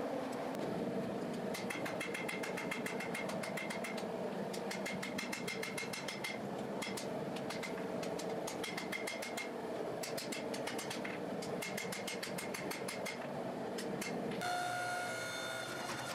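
Hammer striking red-hot steel on an anvil in quick runs of blows with short pauses between, over a steady background rush. About fourteen and a half seconds in the hammering stops and a steady machine hum with a held tone takes over.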